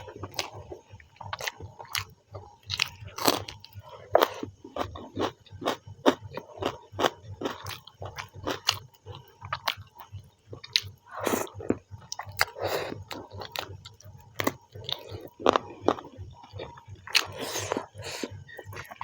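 Close-up eating sounds: a person biting and chewing a meal of chicken and rice, with many short, sharp mouth clicks at an irregular pace.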